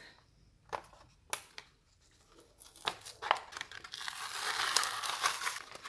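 A plastic blister pack with a card backing being torn open by hand: a few light clicks, then from about halfway through a stretch of crinkling plastic film and tearing card.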